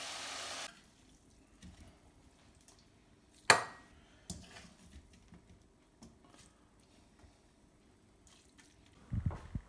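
Hot wok of stir-fry sizzling, cutting off abruptly under a second in. Then quiet, with one sharp metal clink of a spoon against the wok about three and a half seconds in, small taps and scrapes as the food is spooned into a bowl, and a few low knocks near the end.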